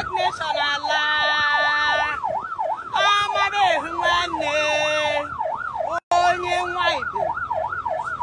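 Siren wailing up and down quickly, two or three sweeps a second, with other steady pitched tones sounding over it at times. The sound cuts out for an instant about six seconds in.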